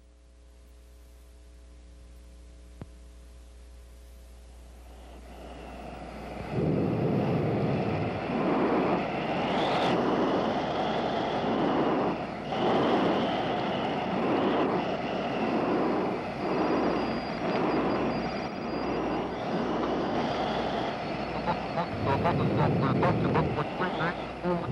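Industrial soundtrack: a low hum at first, then about six seconds in a loud, heavy mechanical noise pulsing regularly about once a second, train-like. In the last few seconds a high steady whine and a rapid rattle join it.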